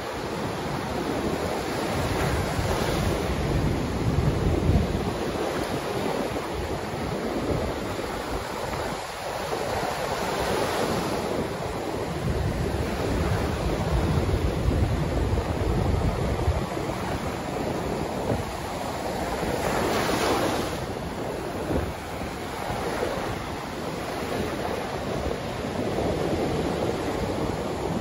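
Atlantic surf breaking close in and washing up the beach, swelling into a louder hiss every several seconds, with wind rumbling on the microphone.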